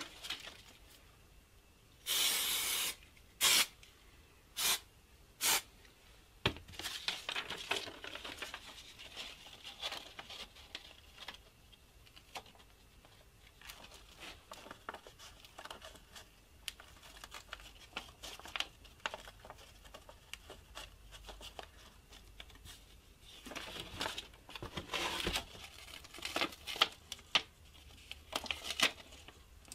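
Paper rustling and crinkling as a sheet of paper pattern is handled and pressed onto a small wooden block. There is a loud noisy burst about two seconds in and three shorter ones over the next few seconds, then light scattered rustles, with a busier patch of crinkling near the end.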